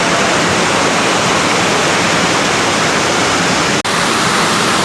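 Waterfall: a loud, steady rush of falling water, broken by a split-second dropout just before four seconds in.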